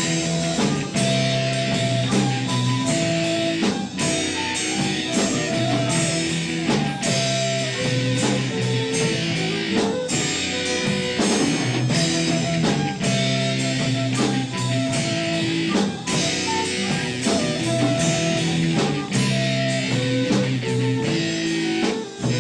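Instrumental passage of a rock song: guitar over bass and a drum kit keeping a regular beat, with no singing.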